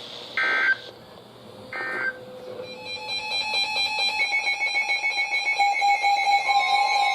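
Two short bursts of Emergency Alert System data tones, the end-of-message bursts that close a broadcast warning. Music fades in from about three seconds in and rises steadily in level.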